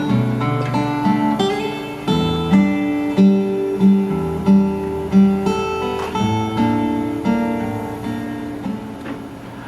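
Acoustic guitar playing live, strummed and picked, with no voice. In the middle a steady run of accented notes comes about one and a half times a second, and the playing eases off toward the end.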